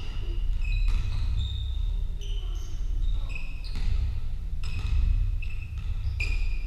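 Basketball shoes squeaking on a wooden sports-hall floor, several short high squeaks, along with knocks from the ball bouncing and players' feet. A steady low hum runs underneath.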